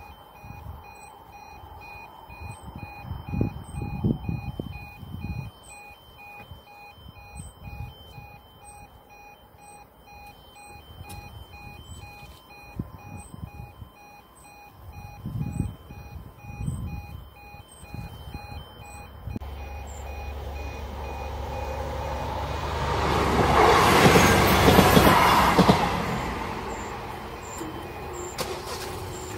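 Level crossing audible warning sounding a steady pulsing beep while the red lights flash and the barriers lower, stopping about two-thirds in. A train then passes over the crossing, building to its loudest about five seconds before the end and fading away.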